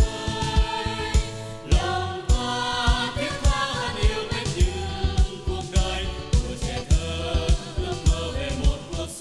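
Women's voices singing a song together over a backing track with a steady drum beat, about two beats a second.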